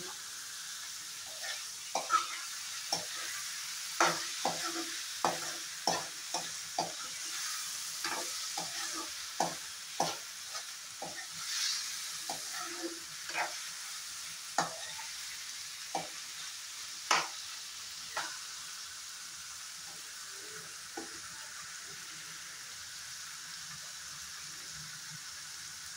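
Bottle gourd and green chillies sizzling in oil in a non-stick kadai while a steel spoon stirs them, clicking and scraping against the pan many times. Near two-thirds of the way through the stirring stops and the steady sizzle goes on alone.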